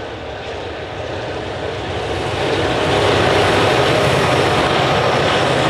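Freight train led by two LDP-class and one X-class diesel-electric locomotives approaching and passing: engine drone and wheel-on-rail noise growing louder over the first three seconds, then staying loud as the locomotives go by.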